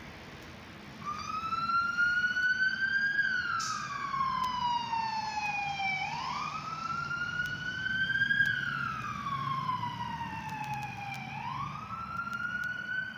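Fire engine siren starting about a second in and sounding a slow wail, its pitch climbing and then falling over about five seconds each cycle, then sweeping quickly back up.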